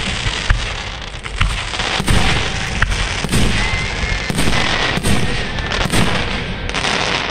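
Aerial firework shells bursting in quick succession during a fireworks display: sharp booms roughly once a second over a continuous din of crackle and rumble.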